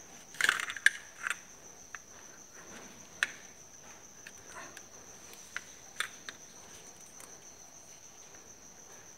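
Scattered small clicks and taps of test-lamp clip leads and wires being handled and fastened onto an air-conditioner control board's fan terminals, with a cluster of clicks near the start. A steady high thin trill runs underneath.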